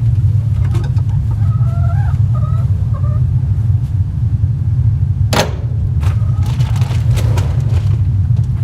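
Distant SpaceX rocket engine test: a steady, deep rumble. Chickens cluck over it, and there is one sharp click about five seconds in.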